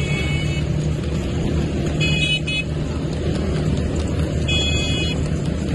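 Motorcycle engines running steadily alongside, with vehicle horns beeping: once at the start, twice in quick succession about two seconds in, and once more near the end.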